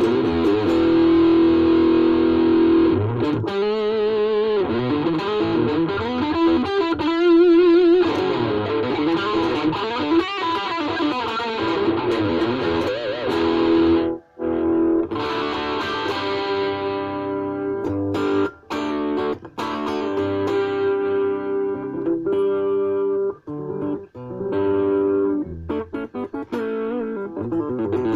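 Ibanez RG350DX electric guitar played through a VOX Soundbox Mini amp. It opens with held notes that waver in pitch with wide vibrato, breaks off briefly about halfway, then carries on with shorter picked notes and short pauses.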